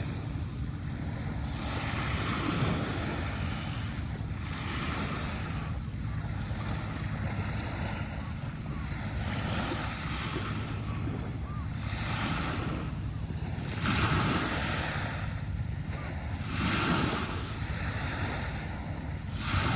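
Small waves breaking and washing up a sandy beach, a surge of surf every couple of seconds with a few louder ones, over a steady low rumble.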